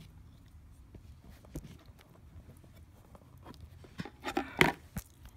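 Handling noise as a sealed card box and the camera are moved about: scattered light clicks and rustles, then a cluster of sharp knocks about four seconds in, over a low steady hum.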